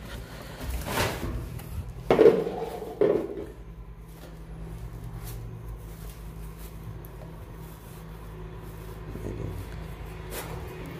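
A few sharp knocks and thumps of things being handled against the boards of a boat's engine hold, the loudest two about two and three seconds in, then a steady low hum.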